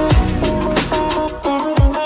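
Background music: a plucked-string melody over a deep drum beat.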